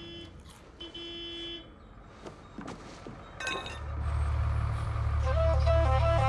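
A school bus horn toots twice, a short toot and a longer one, then the bus's engine rumbles low, growing louder after a sharp clunk. A melody of music comes in about five seconds in.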